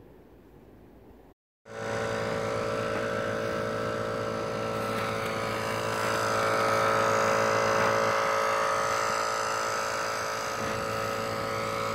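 Portable car air compressor, wired to the battery, running steadily as it pumps an off-road mud tyre back up through a coiled hose. It starts abruptly about a second and a half in, after a faint hush.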